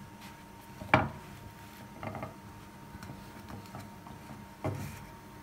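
A wooden spatula knocking and scraping against a metal frying pan while burger bun halves are pressed and shifted in a little oil. There is one sharp knock about a second in, with softer knocks around two seconds and near the end.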